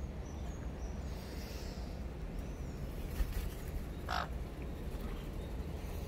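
A parrot gives one short, harsh squawk about four seconds in, after a few faint high chirps in the first second. A low rumble runs underneath, with a brief low bump about three seconds in.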